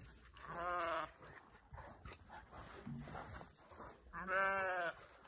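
Two drawn-out animal calls, each under a second, with a quavering pitch; the second, about four seconds in, is the louder.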